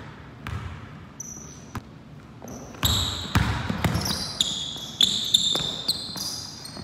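Basketball dribbled on a hardwood gym floor, sharp bounces about a second apart. From about three seconds in, quick high-pitched sneaker squeaks on the hardwood come in among faster bounces as the players move and drive to the basket.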